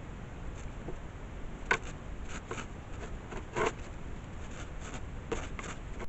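A run of short, irregular scratching and rustling clicks, loudest about three and a half seconds in, over a steady low hiss.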